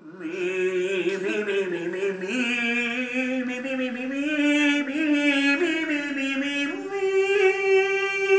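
A man singing an operatic phrase, moving through several notes and ending on a long held high note.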